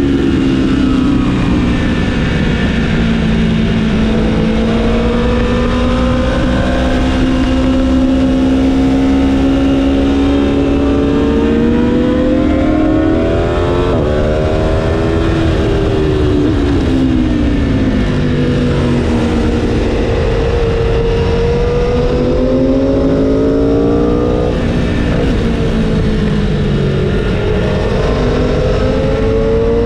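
Aprilia Tuono V4 1100's V4 engine heard from on the bike at speed, its pitch climbing under throttle and dropping back several times as the rider shifts and slows for corners, over a steady rush of wind.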